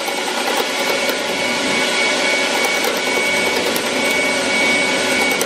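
A dust extractor running steadily under the cutting noise of a bowl gouge rough-turning an ironbark blank spinning on a wood lathe at about 600 RPM.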